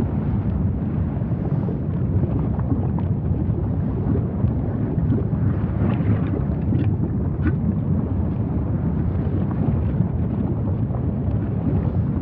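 Lava fountains of a volcanic fissure eruption giving a steady low rumble, with scattered faint crackles.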